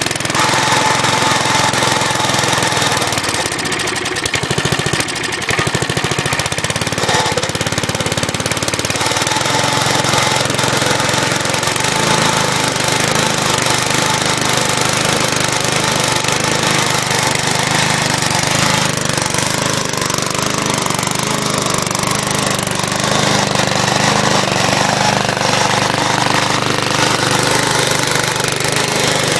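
Single-cylinder Briggs & Stratton engine on an old crank-start push mower running steadily, set at full throttle.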